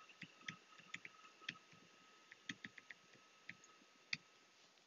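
Faint, irregular clicks of a stylus tapping on a tablet during handwriting, over a faint steady high whine.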